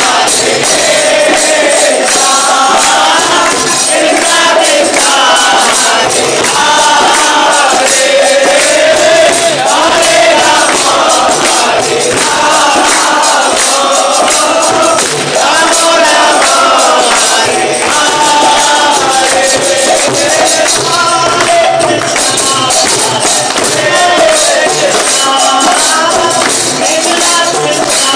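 Devotional kirtan: a man sings a chant to his own harmonium over a fast, jingling metal percussion beat.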